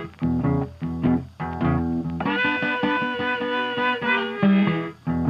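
Instrumental background music: fiddle and guitar playing a tune.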